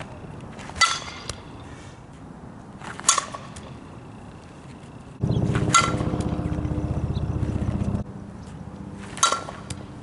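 A fastpitch softball bat hitting pitched balls: four sharp, ringing pings, about two to three seconds apart. About five seconds in, a loud steady low drone starts suddenly and cuts off about three seconds later.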